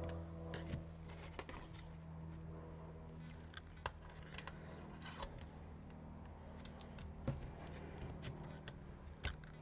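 Scattered light clicks and taps of plastic die-cutting plates and card being handled and set down on a tabletop, over a steady low hum.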